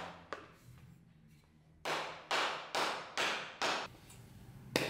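A run of five sharp knocks, about two a second, then a single sharper knock near the end, as an axe head is driven down onto its carved hornbeam handle.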